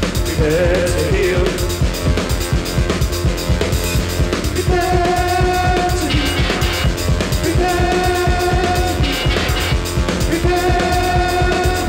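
Krautrock band playing live: a steady, driving drum-kit beat with cymbals, joined from about four seconds in by long held notes that repeat about every three seconds.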